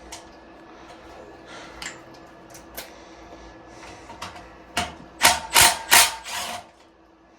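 Hand tools working on a small engine: scattered light clicks and clinks, then four loud short metallic strokes in quick succession, about five to six and a half seconds in.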